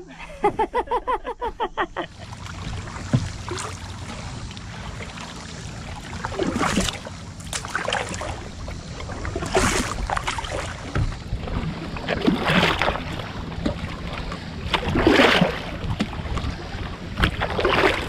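Canoe paddle strokes swishing through lake water, about one every two and a half to three seconds, over a steady low rush.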